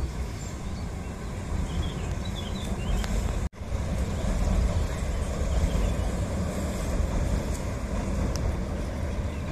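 RA3 "Orlan" diesel multiple unit crossing a steel truss railway bridge: a steady low rumble from the train and its wheels on the bridge. The sound cuts out for a moment about three and a half seconds in.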